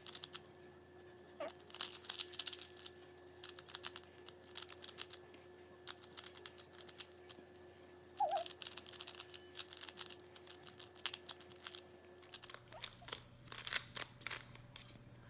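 Plastic twisty puzzle cube (a Windmill Cube) turned rapidly by hand: quick, irregular clicking and rattling of its layers snapping past each other.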